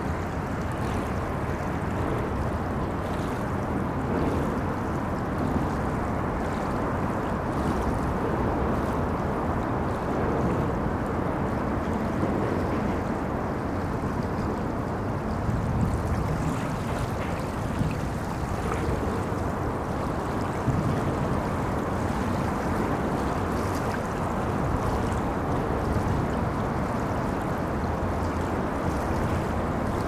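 River water moving along the shore, with the steady low rumble of road traffic crossing a bridge.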